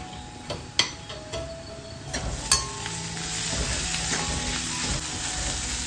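Sliced onions sizzling in oil in a black kadai while a steel spoon stirs them. The spoon clicks sharply against the pan about a second in and again near two and a half seconds, and the sizzle grows fuller and steadier from about three seconds.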